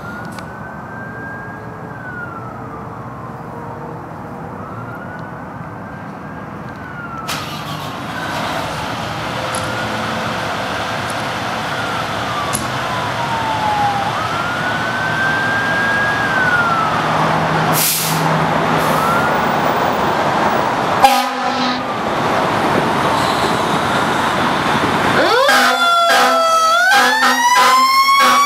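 Pierce fire engine siren wailing, its pitch rising and falling slowly over and over and growing louder as the engine pulls out; about two-thirds of the way through there is one sharp loud knock. Near the end the engine's mechanical Q siren winds up, its growl climbing steadily in pitch over the wail.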